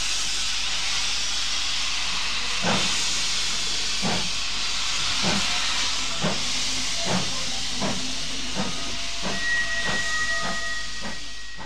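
Steam locomotive hissing steam, then chuffing as it pulls away: the exhaust beats begin about a quarter of the way in and quicken steadily. A steady high whistle tone joins over the last couple of seconds.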